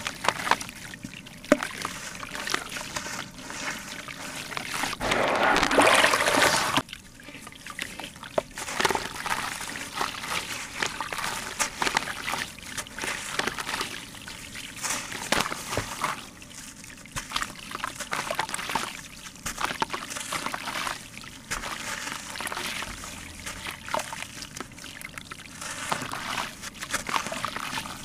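Hand-crumbled sand-cement chunks, with grit and powder trickling and splashing into water in a plastic tub and many small crunching clicks from the crumbling. There is a louder stretch about five seconds in, lasting a couple of seconds.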